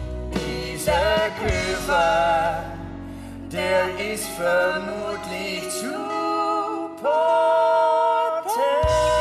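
Music with singing: a sung melody with vibrato, ending in long held notes.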